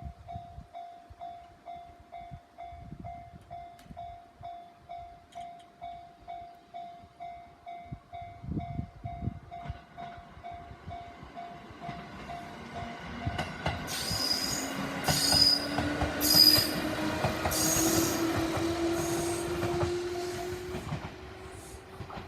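Japanese level-crossing alarm bell ringing in a steady rapid rhythm as a two-car JR 211-series electric train comes up and passes about midway. The train brings loud wheel clacks about a second apart, spread over a rising motor hum. The bell stops near the end.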